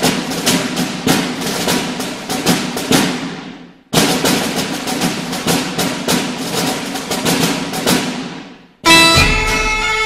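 Outro theme music: fast percussion in two phrases that each fade away, then a held chord of several notes about nine seconds in.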